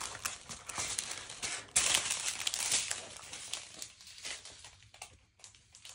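Thin plastic packaging of a diamond painting kit crinkling and rustling as it is handled, with many small crackles, busiest for the first three seconds and dying down after about four.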